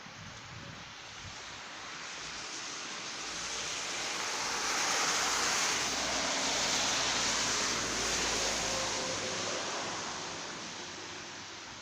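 A vehicle driving past: tyre and engine noise swells to a peak in the middle, with a low rumble underneath, then fades away.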